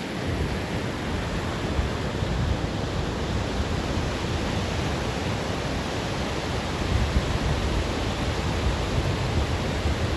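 Pacific Ocean surf breaking and washing onto a beach: a steady deep rush of waves that swells somewhat about seven seconds in.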